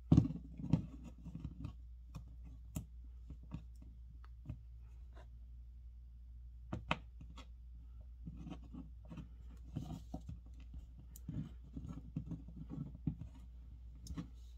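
Fingers handling a small rubber puzzle eraser shaped like a pizza slice: scattered light clicks, taps and rubbing as its pieces are pulled out and pressed back in, with a louder knock right at the start, over a steady low hum.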